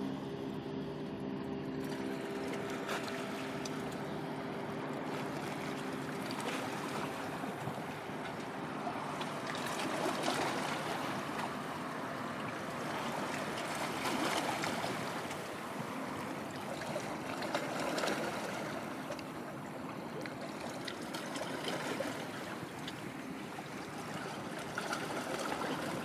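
Steady rush of water and wind that swells and eases every few seconds, with a low engine hum underneath during the first several seconds as a large bulk carrier passes.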